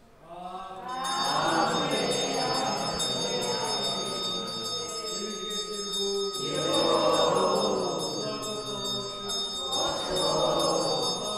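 Buddhist lamas chanting during a temple service, in three swells that rise and fall, over steady high bell ringing. The chant and the ringing start about a second in.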